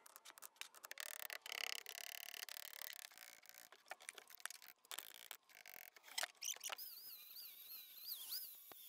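Quick sharp clicks and knocks of bricks and a hammer chipping old mortar on a chimney. About two-thirds of the way in, an angle grinder starts to whine, its pitch wavering as it bites into the stone, with a hiss of grinding over it.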